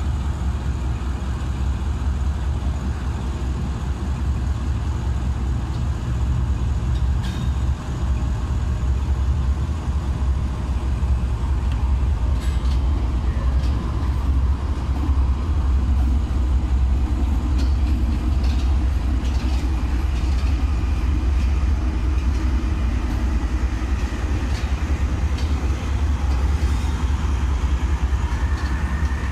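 GE U40 diesel-electric locomotive pulling a passenger train out of the station and passing close by: a steady low engine rumble that grows a little louder. Scattered clicks come as the train passes, and a faint rising wheel squeal starts near the end.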